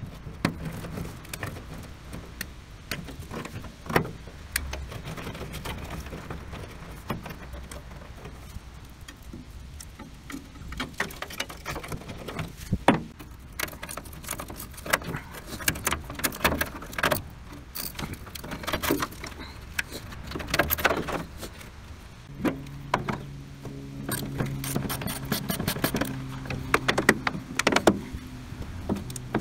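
Hand tools at work on an old truck's rusty front end: side cutters snipping brittle wiring and a wrench on rusted bolts, giving scattered clicks, snips and metallic clinks. A low steady hum comes in about three-quarters of the way through.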